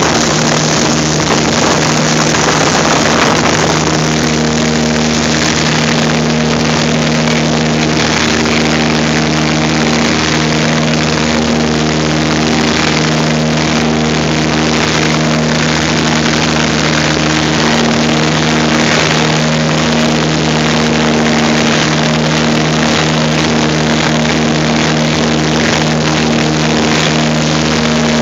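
Cabin noise of a Partenavia twin-engine light aircraft in flight: the steady drone of its engines and propellers, several even low hums over a broad rush of air.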